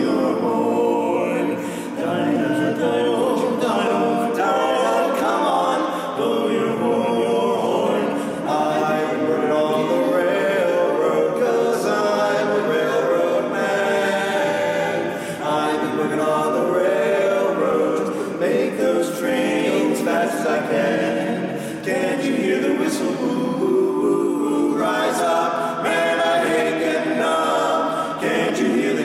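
Barbershop quartet of four men singing a cappella in four-part harmony: tenor, lead, baritone and bass, with no instruments.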